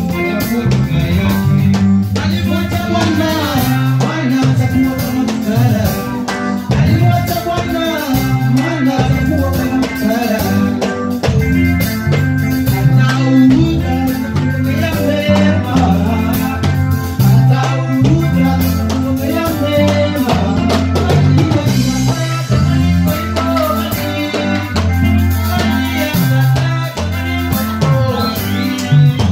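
A song playing: drum kit, bass and guitar keep a steady beat, with a voice singing over them.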